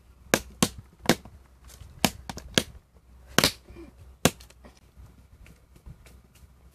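Sharp knocks and cracks of hard wood apple shells being handled: about eight in the first four and a half seconds, then only faint sounds.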